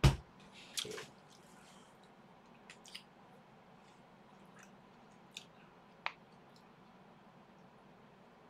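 A loud thump right at the start and a shorter noise just under a second in, then quiet room tone with a few faint clicks and soft eating noises.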